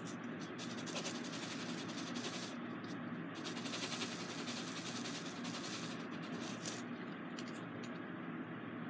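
Dense, rapid clicking and rattling of small plastic diamond-painting drills in a plastic tray as it is handled and shaken. It comes in two spells, easing a little about two and a half seconds in and dying down after about six seconds.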